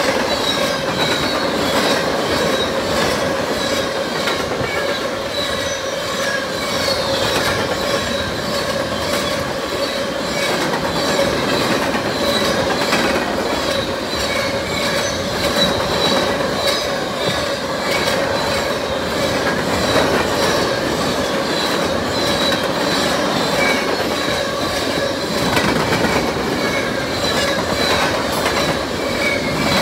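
Freight cars rolling past close by: a steady rumble of wheels on rail with a constant squeal from the wheels and regular clicks as the wheels pass over rail joints.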